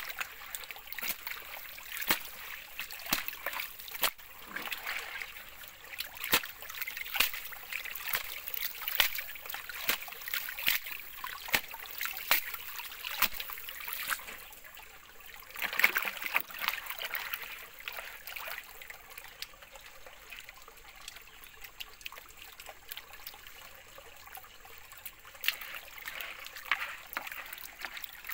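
Water splashing, sloshing and trickling as a gold pan of creek gravel is dipped, shaken and swirled in shallow water, with many small irregular clicks of stones and gravel knocking in the pan.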